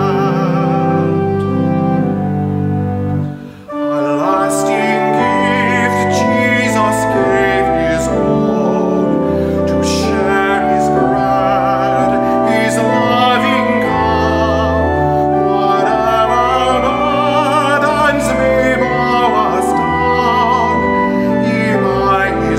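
A hymn sung with instrumental accompaniment. The music drops away briefly about three and a half seconds in, between verses, then the singing continues.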